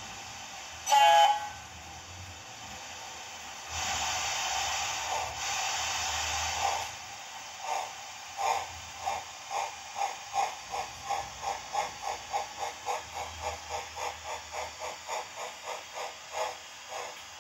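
Recorded steam-locomotive sounds from an H0 model's sound decoder, played through its small onboard speaker: one short air-horn blast about a second in, then a steam hiss for about three seconds, then exhaust chuffs that start slow and quicken to about three a second as the locomotive pulls away.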